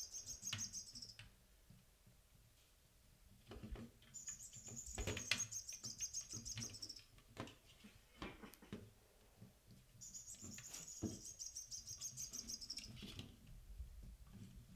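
Chirping bird of a caged-bird cat toy, sounding in three bursts of about three seconds each, with scattered taps and knocks between them as the kittens bat at it.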